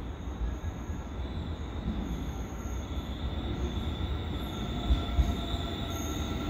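Electric subway train coming into the station: a low rumble slowly growing louder, with thin high whining tones joining about halfway through.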